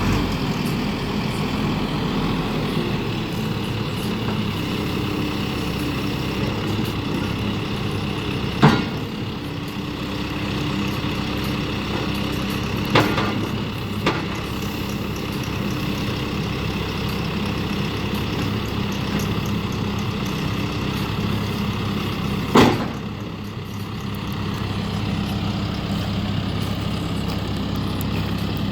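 John Deere 410L backhoe loader's diesel engine running steadily, with three sharp metallic clanks spaced through it and one smaller knock.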